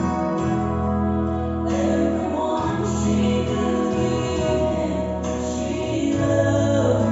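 A woman singing a gospel song solo into a microphone, with band accompaniment and a steady bass under long held notes.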